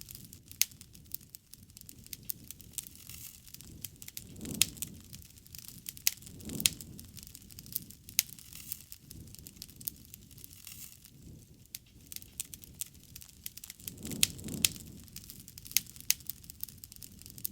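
Wood campfire crackling, with sharp pops and snaps scattered all through and soft low swells of the flames about four and a half, six and a half and fourteen and a half seconds in.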